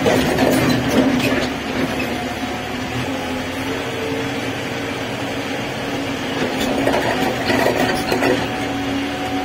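JCB 3DX backhoe loader's diesel engine running steadily under way on the road, heard from inside the cab, with loose cab parts clattering near the start and again about seven seconds in.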